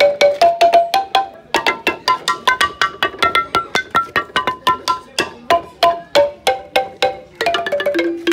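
Amadinda log xylophone, its wooden keys struck with wooden beaters in a fast, even run of ringing notes. About a second and a half in, the notes briefly stop, then come back denser and higher.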